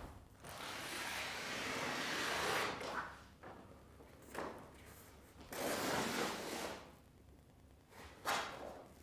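Large sheets of drawn-on paper being ripped off a wall and torn: one long rip of about two and a half seconds, then shorter rips about four, six and eight seconds in.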